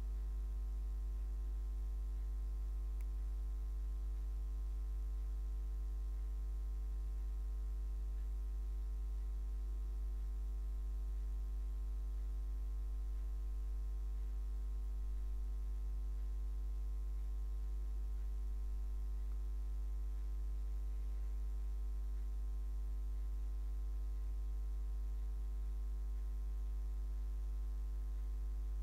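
Steady low electrical mains hum with a ladder of fainter higher overtones.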